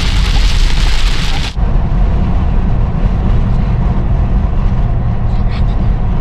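Heavy rain pouring on a moving car, heard from inside the cabin, with the car's low road and engine rumble under it. About a second and a half in, the rain noise cuts off suddenly and only the steady low rumble of the car driving remains.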